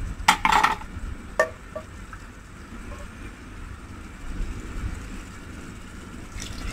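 A metal pan knocking and scraping against the rim of a stainless steel pressure cooker a few times in the first second and a half, while thick curry paste is poured in, over a low steady rumble.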